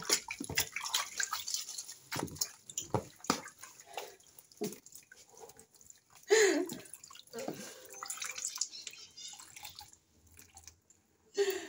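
Water splashing and sloshing in a plastic tub as clothes are rinsed by hand, then water dripping and running off the wet clothes as they are lifted out.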